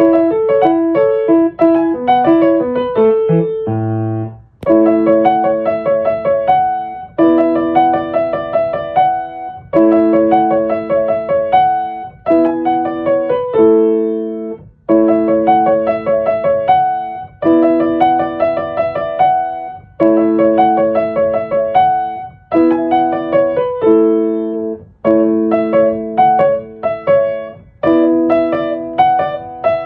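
Solo piano music: a steady, repeating pattern of held chords with melody notes, changing about every two and a half seconds, with a short break about four seconds in.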